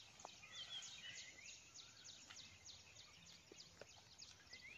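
Faint outdoor ambience: a rapid, regular series of high, falling chirps, about four a second, like a small bird calling, with a few faint ticks.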